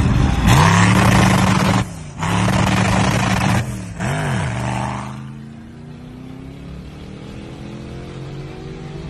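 Sports car exhaust at full-throttle acceleration, loud and rising in pitch, with two quick upshifts about two and four seconds in. From about five seconds in, a quieter engine steadily revs higher, heard from inside a car's cabin.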